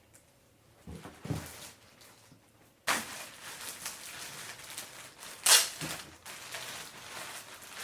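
Rustling and knocking of a tricycle's cardboard box and packaging being handled during unboxing, with two sharp, loud noises, about 3 seconds in and, louder, about 5.5 seconds in.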